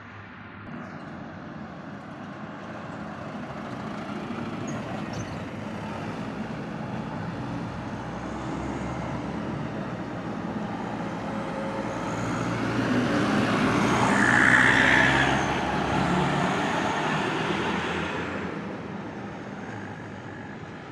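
A heavy road vehicle's engine growing louder as it approaches, passing closest about fourteen seconds in, then fading away.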